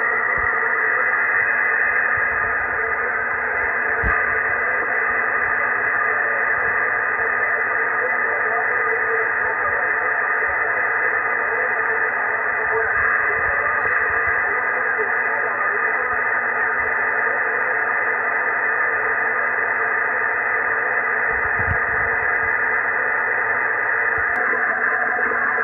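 Shortwave receiver static and band noise: a steady hiss squeezed into a narrow audio passband, with a couple of faint ticks.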